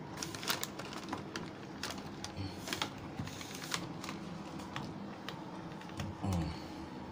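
Irregular light clicks and taps of hands handling the plastic wire connectors and housing of a Samsung washing machine's control board.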